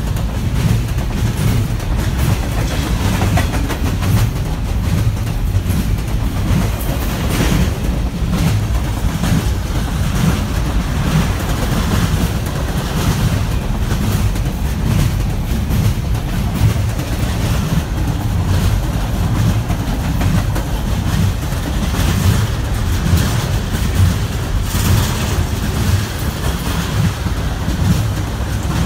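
Double-stack container freight train's well cars rolling past close by: a steady low rumble with scattered brief clanks from the wheels and cars.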